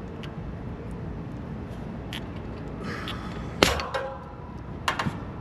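A new scroll compressor's stub plug blowing out: a brief hiss of nitrogen holding charge and a single sharp pop about three and a half seconds in, followed by a few metallic clicks near the end.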